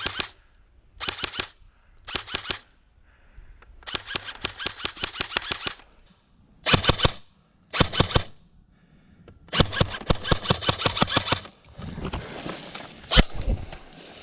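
Airsoft gun firing full-auto in repeated bursts of rapid, evenly spaced shots, some short and two lasting about two seconds. Near the end the firing stops, giving way to rustling movement and one sharp crack.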